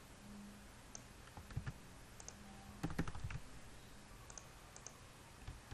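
Faint clicks of a computer mouse and keyboard: a few scattered clicks, then a quick cluster of key presses about three seconds in, as a block of code is selected and pasted.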